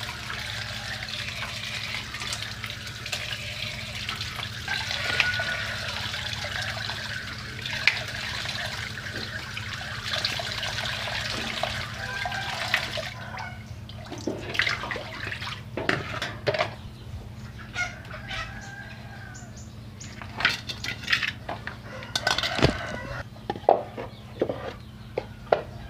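Tap water running into a plastic basin as hands rinse raw pork slices. The water stops about halfway through, followed by a scatter of sharp knocks and clatters as the meat and a wooden block are set down on the concrete.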